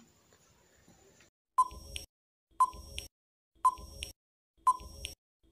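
Countdown timer sound effect: a clock-like tick about once a second, each with a short ringing note and a softer click after it. The ticking starts about a second and a half in, and there are four ticks.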